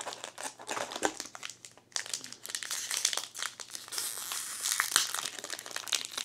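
Foil trading-card booster pack being handled and torn open, its wrapper crinkling and crackling, densest about four to five seconds in as the foil is pulled apart.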